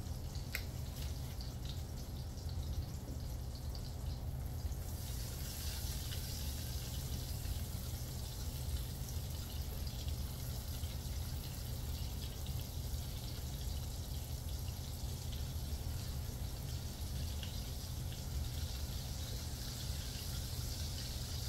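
Andouille sausage sizzling as it browns in butter in a pan: a steady frying hiss that grows brighter about five seconds in, over a steady low hum.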